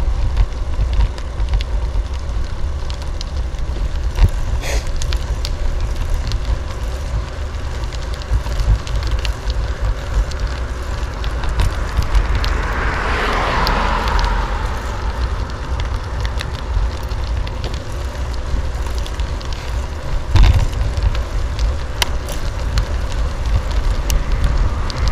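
Riding a bicycle without suspension, with wind rumbling on a handlebar-mounted camera mic over a steady hiss of tyres on asphalt, and scattered clicks and knocks as the frame rattles over bumps. About halfway through a car passes, its road noise swelling and fading.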